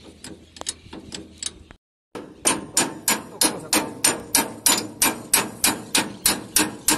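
Light irregular clicking and tapping, then after a momentary break a hammer striking in steady rapid blows, about four a second.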